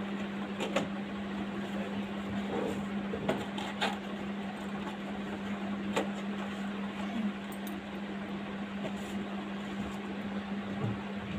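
Steady low machine hum with an even hiss behind it, broken by a few faint ticks.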